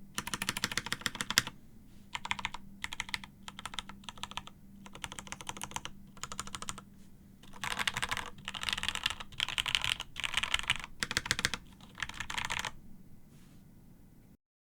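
Typing on a plateless Keebox M0110 mechanical keyboard with stock Gateron UHMknown switches: fast runs of keystrokes in bursts with short pauses between them, the longest and loudest run about eight to thirteen seconds in. The typing then stops and the sound cuts off just before the end.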